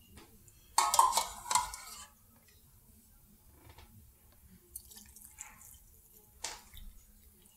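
Hot beef broth being scooped from a stainless saucepan and poured through a plastic canning funnel into a meat-packed glass canning jar. About a second in there is a short burst of splashing and clinking, then a quieter pour trickling down into the jar, with a small knock near the end.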